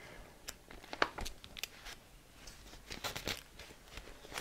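Pages of a printed paper catalogue being leafed through quickly: a run of short flicks and paper rustles, with a longer rustle a little past halfway.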